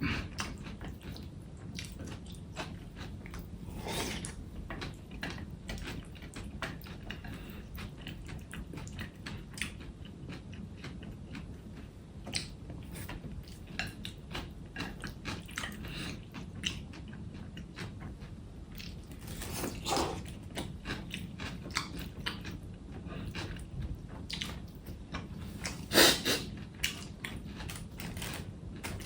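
Close-miked eating: chewing and biting with many small crunchy clicks, over a steady low hum. There are a few louder mouth noises, about 4 s in, about 20 s in and, loudest, about 26 s in.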